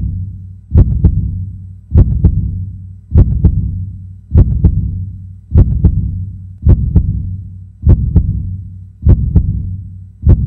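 Heartbeat sound effect: slow, steady lub-dub double thumps, about one beat every 1.2 seconds.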